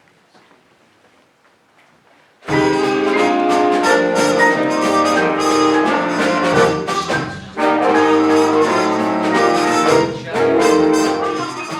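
A high school jazz big band comes in suddenly about two and a half seconds in, after a brief hush of room tone. The brass section plays loud chords and phrases over drums.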